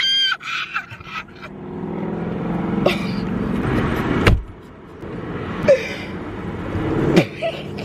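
Steady low hum of a car's cabin with the engine idling, broken by several sharp knocks and rustles as a disposable paper face mask is handled and put on close to the phone's microphone.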